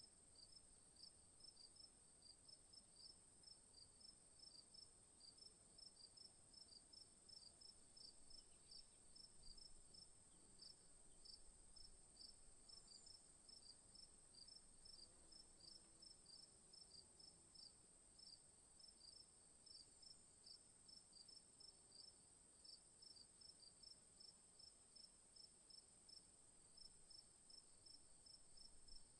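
Faint cricket chirping, an even run of short high chirps about three a second, over a steady high-pitched whine.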